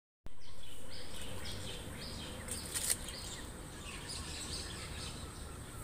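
Outdoor garden ambience: small birds chirping in short, repeated falling notes over a steady low background noise, with a brief burst of noise about three seconds in.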